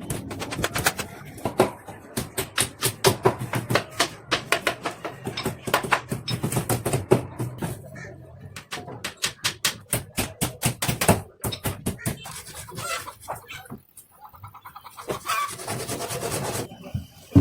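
A rapid, irregular series of sharp knocks and clicks, several a second, with short pauses about eight and fourteen seconds in.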